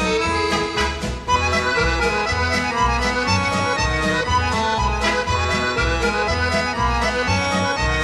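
Instrumental background music with a steady bass beat.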